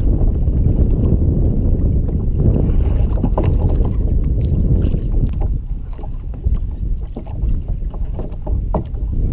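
Wind buffeting the microphone in a low, steady rumble, with scattered small knocks and clicks.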